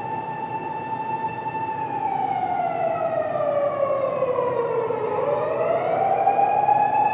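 Japanese police patrol car's electronic siren wailing. It holds a steady high note, slowly falls over about three seconds, then climbs back up, growing louder toward the end. Road noise runs underneath.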